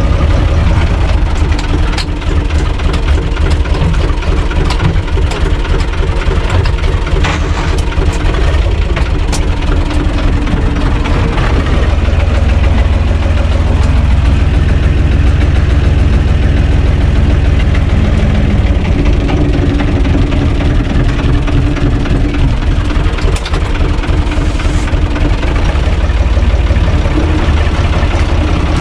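UTB Universal U445 tractor's diesel engine running steadily while driving, heard loud from inside the cab, with a few sharp clicks now and then.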